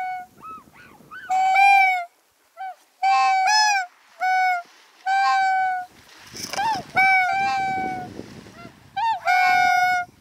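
A flock of swans calling: loud, bugle-like honking calls, each under a second, following one another about once a second.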